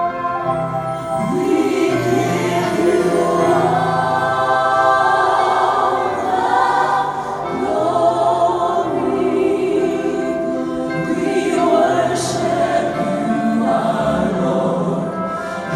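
A choir singing, several voices holding long notes together in slow, changing chords.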